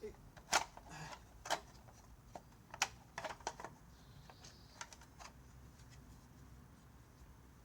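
Irregular sharp clicks and light knocks of tools and parts being handled as the top cover is taken off a Danarm 125 chainsaw, thickest in the first four seconds and thinning out after.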